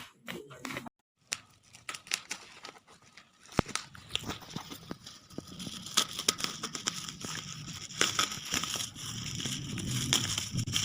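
Crackling, rustling handling noise with scattered clicks, growing denser and louder over the last few seconds.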